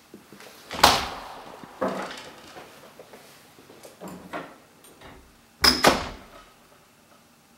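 A series of knocks and bangs with a door-like quality: a loud bang about a second in that rings on, several smaller knocks after it, and two sharp bangs in quick succession near six seconds in.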